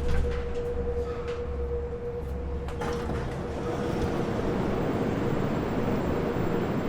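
Moscow Metro train running, heard from inside the carriage: a few clicks and a steady tone in the first three seconds, then the train's running noise grows about halfway through and holds steady.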